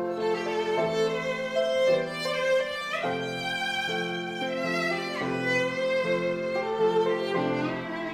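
Slow instrumental music: a violin holding a sustained, lyrical melody over piano chords.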